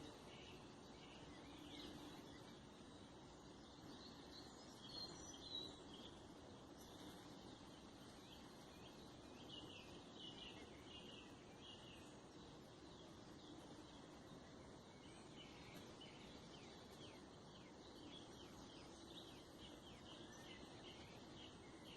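Near silence: faint forest ambience with small birds chirping, many short high chirps scattered throughout.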